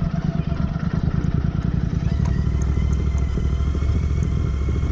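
Royal Enfield Interceptor 650's parallel-twin engine running steadily as the motorcycle is ridden.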